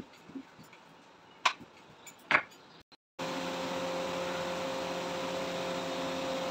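A steady mechanical hum with an even whirring noise, like an electric fan running, sets in just after three seconds. Before it there is faint room sound with two sharp knocks, about a second and a half and two and a half seconds in.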